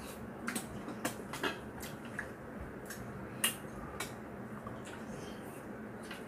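Chopsticks and a spoon clicking against ceramic rice bowls while eating: scattered light clicks, the sharpest about three and a half seconds in.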